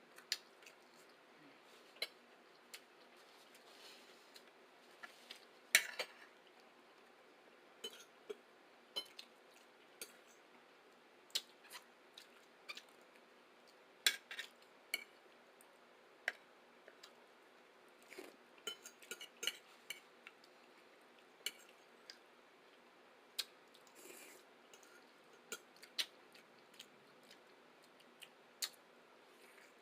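Utensils clicking and tapping against dishes while eating: short, sharp, irregular taps, roughly one or two a second, with a louder clatter about six seconds in and again about fourteen seconds in.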